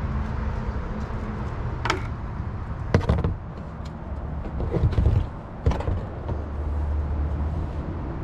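A few sharp knocks and clunks from test gear and hoses being handled at a cast-iron sewer cleanout, over a steady low rumble.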